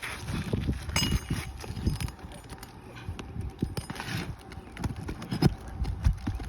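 Irregular knocks, taps and scraping on asphalt roof shingles, with low wind rumble on the microphone.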